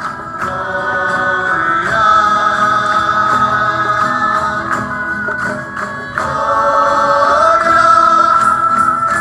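A choir singing a religious song with musical accompaniment, holding long sustained notes that swell about two seconds in and again about six seconds in.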